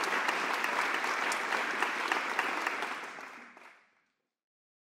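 Audience applauding, a dense patter of many claps that fades out about three and a half seconds in.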